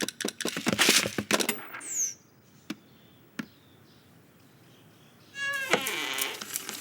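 Animated-film sound effects: a rapid run of clicks and scrabbling, a quick falling whistle, then a quiet stretch broken by two single ticks, and near the end a squeaky pitched sound that falls in pitch.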